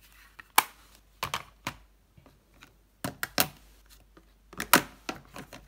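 Makeup palettes being handled: a series of irregular sharp clacks and taps as the cases are picked up, knocked together and set down in a plastic drawer organizer.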